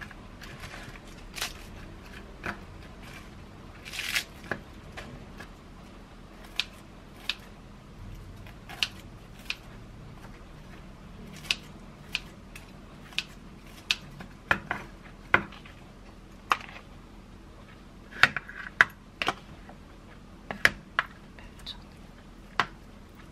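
Food being packed into a lunchbox by hand: scattered sharp clicks and snips of kitchen scissors cutting breaded fried pieces held in metal tongs, and a metal spoon tapping and scraping as cooked rice is spread into the box, with lettuce leaves torn in at the start.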